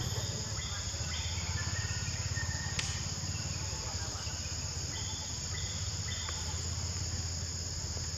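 A steady, high-pitched insect chorus drones continuously, over a low steady hum. Faint short chirps come in now and then.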